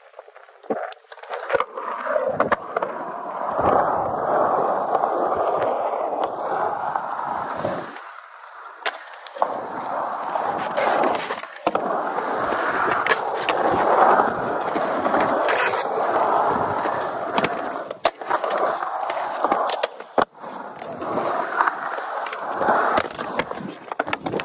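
Skateboard wheels rolling on smooth concrete, the roar swelling and fading as the board carves through the bowl and transitions. Several sharp clacks of the board cut through it at points.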